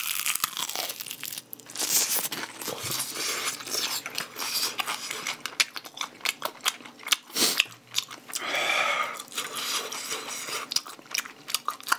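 Crispy fried chicken being bitten and chewed: a crunch as the teeth break through the crisp coating, then a long run of rapid crackly crunching while chewing.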